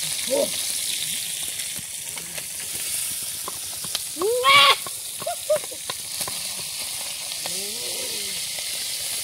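Fish frying in hot oil in a wok over a wood fire: a steady sizzle. Short voice-like calls cut in now and then, the loudest about four and a half seconds in.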